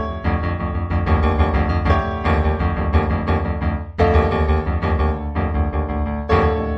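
Background solo piano music, a flowing run of sustained notes and chords, with strong new chords struck about four seconds in and again near the end.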